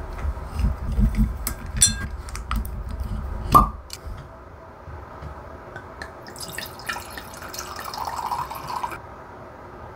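A wing corkscrew is twisted into a wine bottle's cork with scraping and clicking. The cork squeaks and pops out about three and a half seconds in. Near the end, wine is poured from the bottle into a stemmed glass for a couple of seconds.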